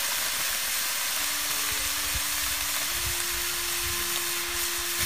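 Chongcai (chopped mustard greens with chili, garlic and diced pork) steadily sizzling as it fries in an iron wok, with no stirring.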